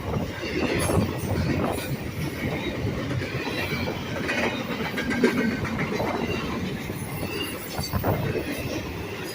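Intermodal freight cars rolling steadily past, their wheels rumbling and clattering over the rail joints with irregular knocks and a faint high wheel squeal now and then.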